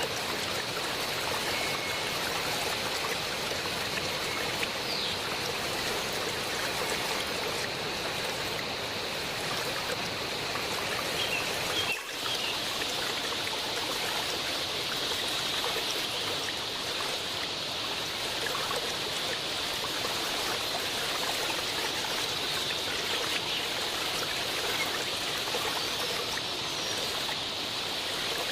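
Waterfall: falling water rushing and splashing in a steady, unbroken stream.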